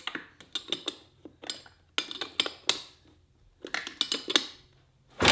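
Freshly rebuilt Kawasaki KX100 two-stroke being kick-started, sputtering into life in short, irregular clusters of sharp metallic clatter and popping.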